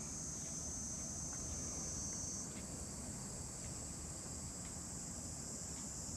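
Insects singing steadily in a high continuous chorus, with one thin high tone in it that drops out about two and a half seconds in. Faint light ticks come about once a second underneath.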